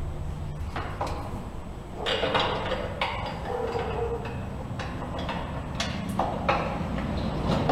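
Scattered metallic clicks, knocks and scraping as a motorcycle front axle is worked through the wheel hub and fork legs.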